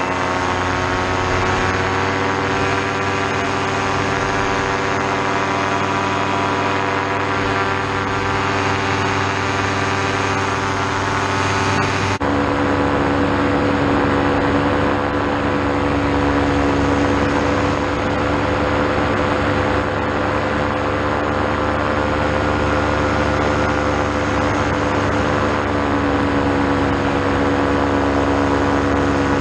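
Paramotor trike's engine and propeller running steadily in flight, heard from the trike seat. The engine note rises slightly in the first two seconds and changes abruptly about twelve seconds in, then holds steady.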